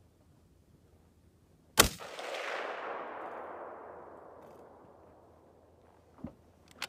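A single rifle shot from a .280 Remington Ruger M77 bolt-action rifle about two seconds in: a sharp crack followed by a long rolling echo that fades over about three seconds. Two faint clicks follow near the end.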